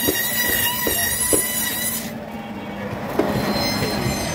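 Band saw screeching as its blade cuts through the head and bone of a large bagair catfish, over the steady hum of its motor. The high-pitched squeal drops away about two seconds in and comes back near the end.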